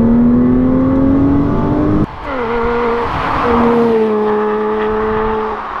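2008 Porsche Cayman 987's 2.7-litre flat-six, fitted with a full Bery Inox stainless exhaust, accelerating in second gear with its note climbing steadily. About two seconds in, the sound switches abruptly to the car heard from outside: the note drops, then holds steady and falls slightly as it drives on. The exhaust note is deep and raspy.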